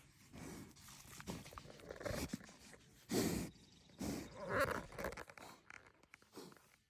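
Farm animals making a few short, irregular noisy vocal sounds, the loudest about three seconds and four and a half seconds in.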